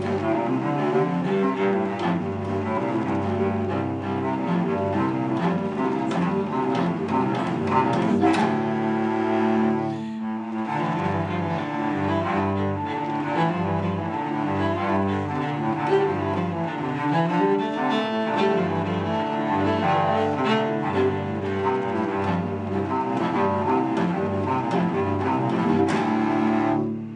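Two cellos playing a bowed duet, with a brief break about ten seconds in; the playing stops abruptly at the end.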